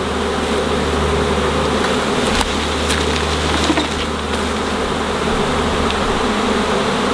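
A honeybee swarm buzzing loud and steady: tens of thousands of bees in flight around the box they have just been shaken into from a branch.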